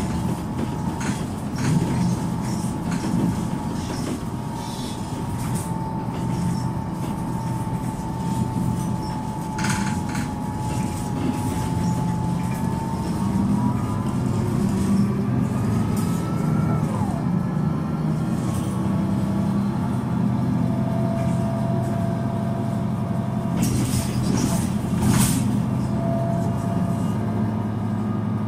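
Solaris Urbino 12 III city bus heard from the passenger cabin: its DAF 9.2-litre six-cylinder diesel drones steadily under a loud whine from the ZF Ecomat six-speed automatic gearbox. The whine holds, rises and then drops sharply a little past halfway as the gearbox shifts, and a few short hisses break in around the middle and near the end.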